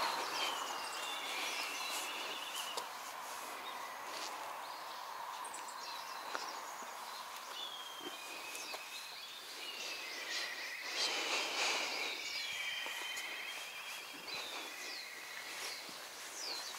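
Small birds chirping and trilling, with a louder stretch of chatter about eleven seconds in, over a steady outdoor background hiss.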